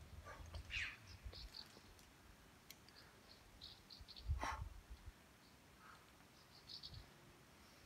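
Faint outdoor ambience: light low wind rumble on the microphone, scattered faint short high chirps, and one brief breathy burst about four and a half seconds in.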